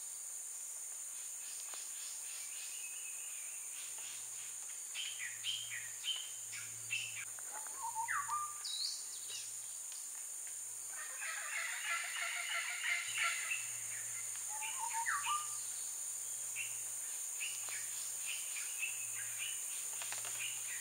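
Wild birds calling at a marsh pond: a rising call repeats about every seven seconds among scattered chattering calls, with a dense cluster of calls in the middle, over a steady high-pitched insect drone.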